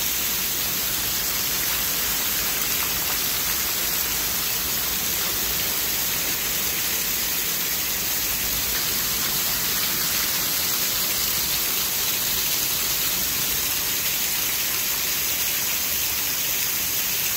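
Heavy hail pelting down, a dense, steady hiss of countless hailstones striking the ground and grass.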